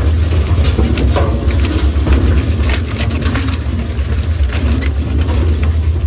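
Gross Gaz 62 E drum wood chipper running under load as its knife drum cuts wood into chips: a steady low drone with rapid, irregular crackling of wood being chipped.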